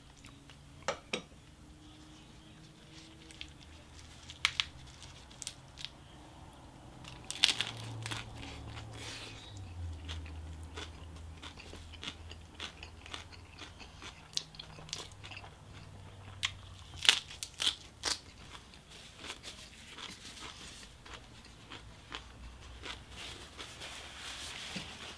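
Close-up chewing and crunching of a lettuce-leaf pork wrap, with irregular wet mouth clicks.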